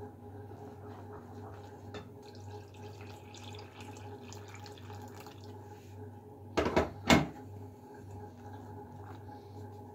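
Water poured from an electric kettle into a bowl of flour, a steady trickling pour, followed by two loud knocks about seven seconds in.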